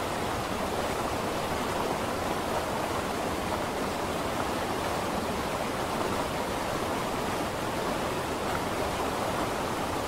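Steady, even rushing noise with no separate sounds standing out.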